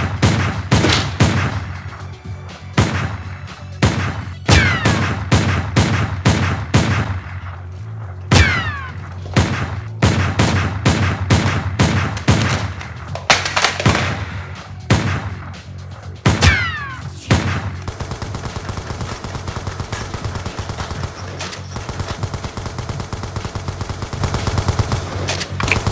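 Dubbed-in gunfire sound effects: single loud shots at irregular intervals, several followed by a falling ricochet whistle. About eighteen seconds in, the single shots stop and a steady, fast rattle like automatic fire takes over.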